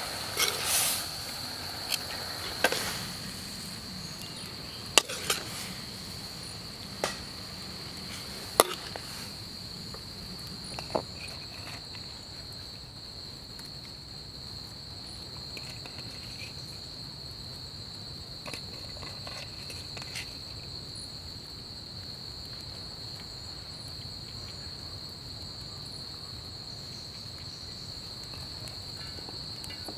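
Steady high-pitched insect chorus from the surrounding countryside, unbroken throughout. In the first ten seconds or so a handful of sharp clinks and knocks, a utensil against the metal wok and plate as the food is served.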